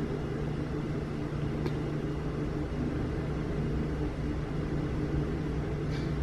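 A steady low hum made of several constant low tones over a faint even hiss, like an appliance or ventilation fan running.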